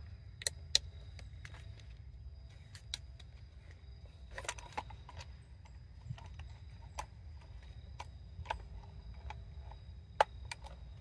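Scattered light clicks and rattles of the plastic housing and wiring of a 2010 Honda Odyssey fuel pump module being handled and fitted together by hand, with a sharper click near the end, over a steady low rumble.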